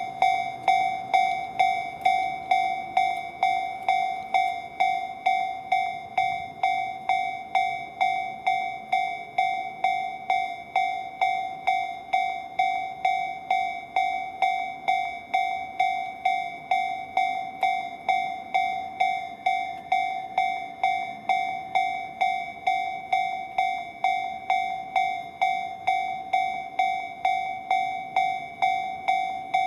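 Level-crossing warning bell ringing steadily, a bright metallic ding repeated about twice a second, warning that a train is approaching.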